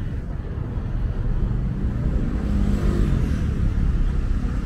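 Busy street traffic: cars and buses running past on the road, under a steady low rumble. It swells briefly about halfway through, as of one vehicle passing closer.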